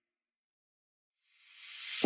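Silence, then about one and a half seconds in a rising whoosh of hiss swells up quickly and leads straight into background music.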